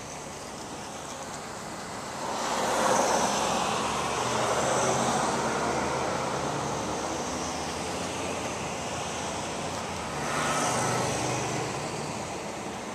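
Street traffic going by: a vehicle passes about two seconds in, swelling up and then slowly fading, and a second, shorter pass comes about ten seconds in.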